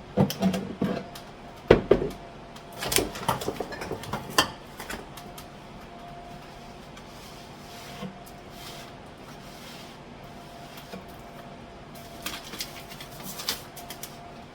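Kitchen containers and packets being handled and set down on cupboard shelves: a run of knocks and clatters over the first few seconds and a few more near the end, with a faint steady hum between.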